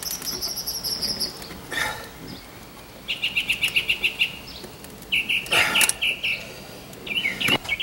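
Songbirds singing: a high, fast trill of repeated notes at the start, then a lower rapid trill that comes three times. A couple of short scraping sounds fall in between, one of them about six seconds in.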